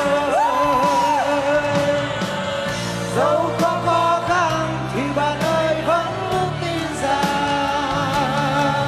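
Live pop song: voices singing into stage microphones over a band backing.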